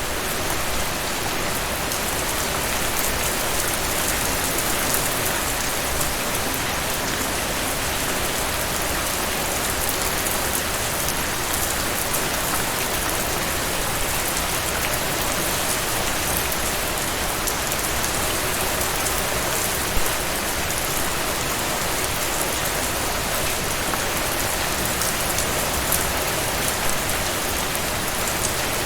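Steady rain falling: an even hiss with scattered sharp drop taps, one louder tap about two-thirds of the way through.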